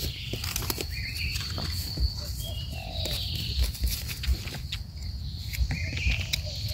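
Forest ambience: an insect's steady high-pitched trill that fades out about halfway through, with a few short bird chirps. Scattered small clicks and rustles of leaf litter and hands come from picking a mushroom.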